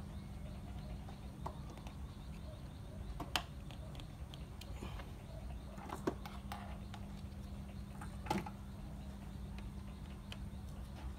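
Small metal clicks and taps as a presser foot is screwed onto an industrial sewing machine with a screwdriver, over a steady low hum. Three sharper clicks stand out, about three, six and eight seconds in.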